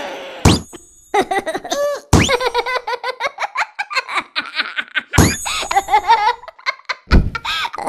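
Hard, high-pitched laughter in rapid pulses, with a few sharp thumps in between.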